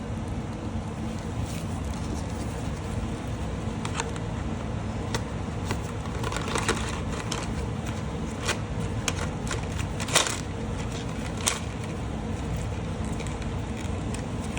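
Scattered clicks and short rustles of nail-product packaging being handled, over a steady low background hum.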